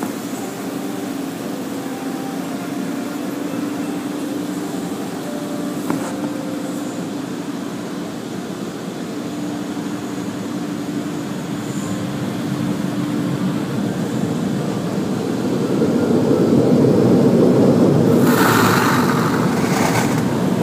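Automatic car wash heard from inside the car: a steady machinery hum with water spraying on the body, swelling louder in the last few seconds into a loud rush of spray as the jets or brushes pass over the car.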